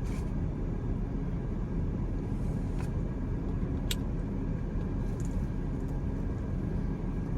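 Steady low rumble of a parked car idling with its air conditioning running, heard from inside the cabin. Two short clicks about three and four seconds in.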